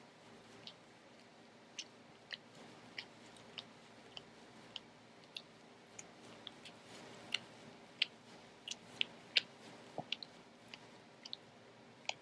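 Cavalier King Charles Spaniel grooming its paw with its mouth, licking and nibbling in sharp wet clicks and smacks. The clicks come at an irregular pace of one or two a second and bunch closer together in the second half.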